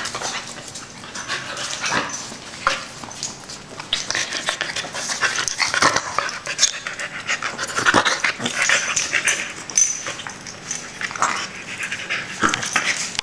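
A Boston Terrier puppy and a corgi play-wrestling: heavy dog panting with irregular scuffling and clicks on a tile floor.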